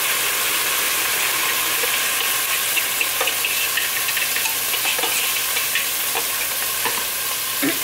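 Chicken pieces sizzling in a hot pot as a honey glaze is poured in, with a steady frying hiss. Scattered light clicks come from a whisk scraping the glaze out of the bowl.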